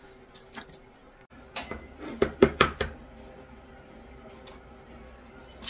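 Kitchenware clattering: a quick run of about five sharp knocks in just over a second, about two seconds in.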